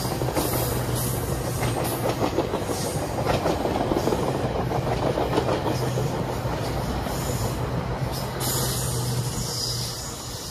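A train passing: steady rumbling of wheels on the rails with repeated clicks and a steady low hum, easing off slightly near the end.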